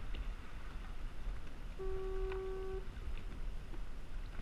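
A single steady beep, about a second long, near the middle, over a low rumble of wind on the microphone.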